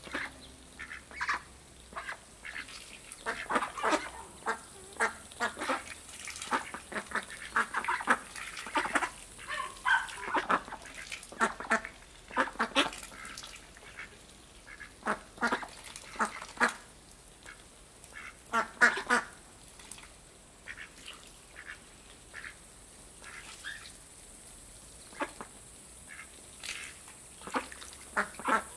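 Runner ducks quacking while they feed: short calls in irregular bursts, busiest in the first two-thirds, with quieter spells in between.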